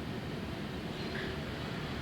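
Steady outdoor neighbourhood ambience at dusk: an even low rumble with a faint short chirp about a second in.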